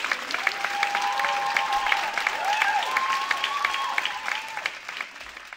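Audience applauding, dense rapid clapping with a few drawn-out cheering calls over it, fading out near the end.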